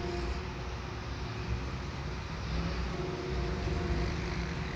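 Street traffic: a steady low rumble of vehicle engines running.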